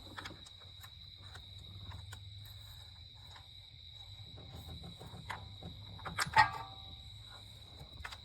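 Hand tools working on spark plugs: scattered light clicks and taps of a socket and ratchet, and one loud, sharp ringing metal clink about six seconds in. A steady high-pitched tone and a low hum run underneath.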